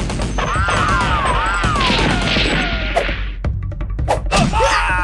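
Dubbed action soundtrack: background music layered with crash and hit sound effects, and a wavering tone that falls in pitch over the first three seconds.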